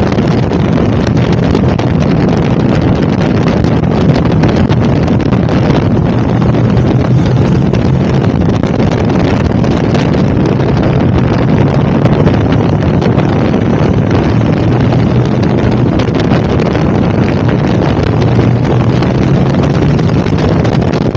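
KTM 1290 Super Adventure's V-twin engine running at a steady cruise, mixed with heavy wind rush across the microphone.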